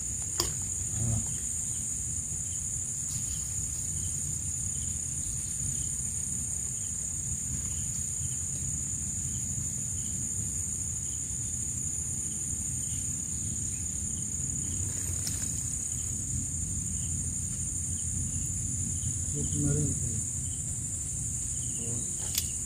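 A steady, high-pitched chorus of insects, unbroken throughout, over a low steady rumble.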